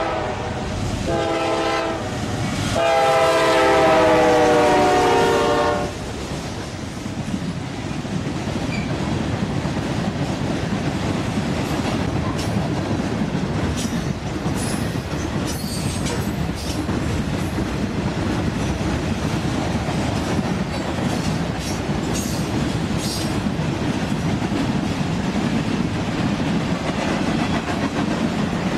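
Norfolk Southern diesel locomotive's horn sounding a short blast, then a long blast of about three seconds. The freight train then rolls past close by with a steady rumble and clickety-clack of wheels over rail joints, and a few brief high squeaks from the wheels.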